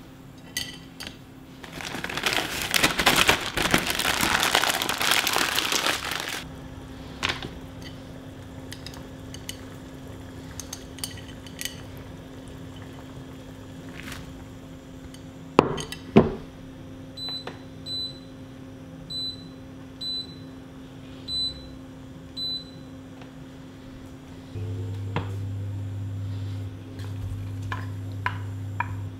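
Plastic bag crinkling as fresh noodles are pulled out of it, then two clanks of pans on the hob. After that comes a row of short, high beeps from the hob's touch controls, and a steady low hum that sets in about 25 seconds in.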